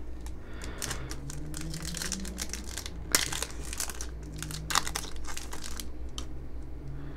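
Foil trading-card booster pack crinkling and tearing as it is ripped open by hand, with louder crackles about three seconds in and again near five seconds.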